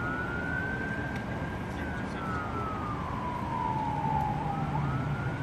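Emergency vehicle siren on a slow wail: it rises, holds high, slides slowly down over about three seconds, then climbs again near the end, over a steady low rumble.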